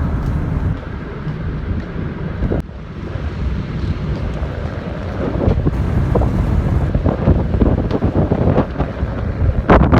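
Strong wind buffeting the microphone, a loud, gusty rumble, with a few short knocks, the loudest near the end.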